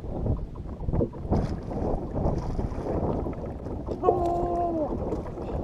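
Wind on the microphone and choppy water against a boat, with a man's loud, drawn-out shout of "Bruh!" about four seconds in.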